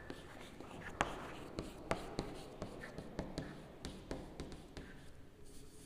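Chalk writing on a chalkboard: faint, irregular taps and short scratches of the chalk stick, several a second, as words are written out.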